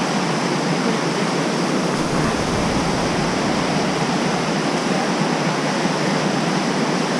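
Whitewater rapids rushing: a loud, steady, even noise of fast water.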